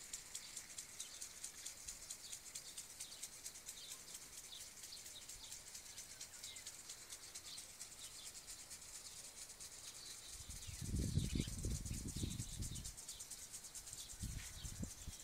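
Faint rural outdoor ambience: a steady high insect chirring with scattered short bird chirps. About ten seconds in comes a low rumble lasting about two seconds, the loudest part.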